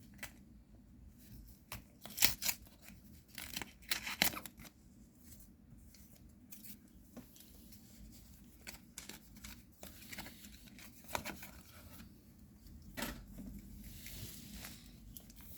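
A trading-card booster pack's plastic wrapper crinkling and crackling as it is opened, in two sharp spells a couple of seconds in, followed by lighter handling clicks and rustles of the wrapper and cards.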